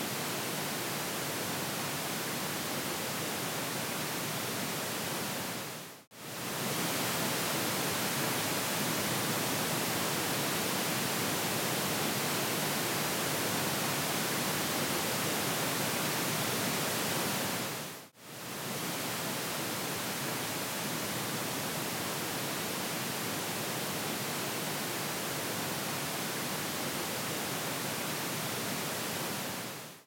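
Pink noise speaker-test signal from a DTS-HD 5.1 speaker-assignment test, played in long steady stretches broken by short gaps about 6 seconds and 18 seconds in, each stretch sent to the next speaker channel in turn; there is little sound below about 100 Hz.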